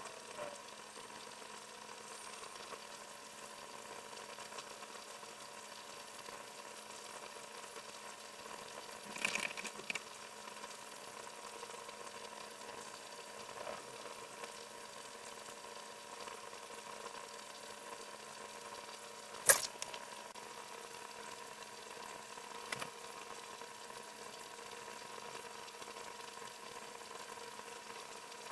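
Room tone: a low, steady hiss with a faint steady hum. A few soft knocks come about nine seconds in and a single sharp click about twenty seconds in.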